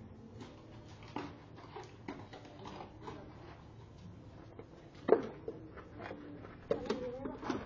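Boxer puppy at play: scattered small clicks and scuffs, a sharp short vocal sound about five seconds in, and a few more short vocal sounds near the end.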